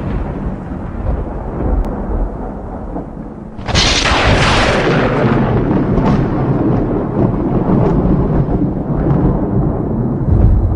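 Thunder rumbling, with a loud sudden thunderclap about four seconds in that rolls away over a second or two before the low rumble carries on.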